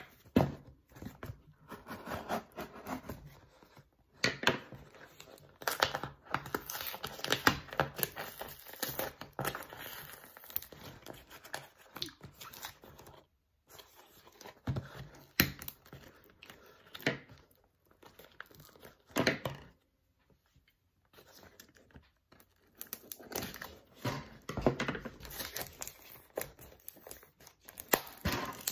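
Yellow packing tape and wrapping being peeled and torn off a small cardboard parcel by hand, in irregular rips and crinkles with short pauses.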